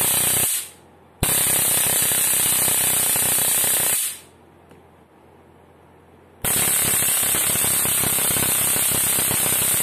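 Stun gun built into a torch light, arcing between its electrodes: a loud, rapid electric crackle with a high hiss. It comes in three bursts: the first stops about half a second in, the second runs from about a second in to about four seconds, and the third starts about six and a half seconds in.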